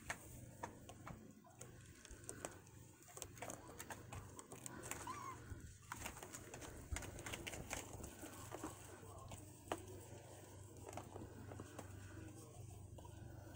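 Faint, scattered clicks and rattles of a headband toy with springy antennae as kittens bat and tug at it, over a low steady hum. A short chirp comes about five seconds in.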